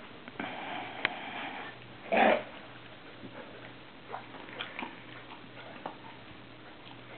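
Smooth collie wheezing while eating dry kibble: a raspy wheezing breath for about a second, then a short, loud breath noise about two seconds in. Scattered light clicks of kibble being chewed follow.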